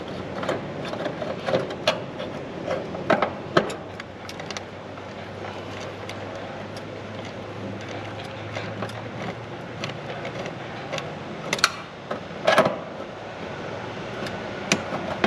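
Sharp metal clicks and taps from a driver tool working at the wire terminals of an air-conditioner condenser's contactor: a few in the first four seconds and a louder pair about twelve seconds in, over a steady background hum.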